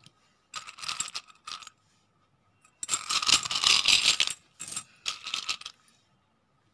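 Three bursts of rustling and light clicking from hands handling macrame cord and plastic beads; the middle burst is the longest and loudest.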